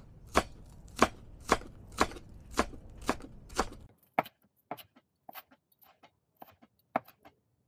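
Chef's knife slicing green onion into fine strips on a plastic cutting board: steady strikes about two a second. After about four seconds the strikes turn lighter and irregular.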